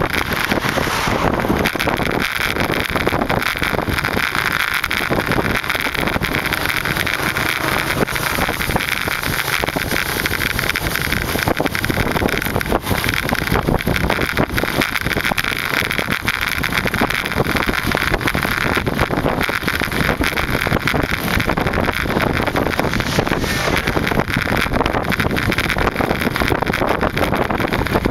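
Wind rushing and buffeting over the microphone of a camera riding on a moving bicycle, a loud, steady rush.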